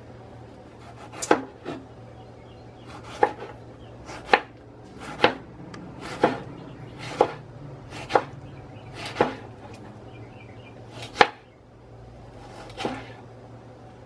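A long kitchen knife slicing a tomato into rounds on a wooden cutting board: about ten sharp knocks of the blade against the board, roughly one a second.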